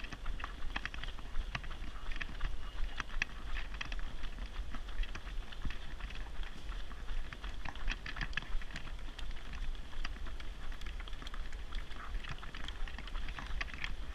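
Running footsteps of several runners pattering irregularly on tarmac, mixed with the rattle of a jogging stroller being pushed at a run, over a steady low rumble.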